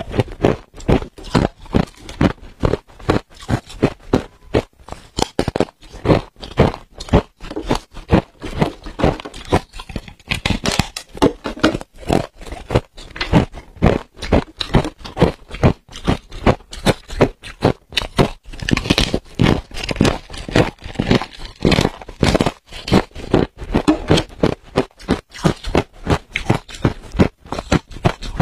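Crunchy white freezer-frost ice being chewed: a continuous run of crisp crunches, several a second.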